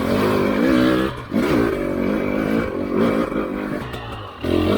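Husqvarna TE300i two-stroke enduro motorcycle engine revving up and down as the throttle is worked while riding, its pitch rising and falling repeatedly, with brief drops about a second in and again near the end.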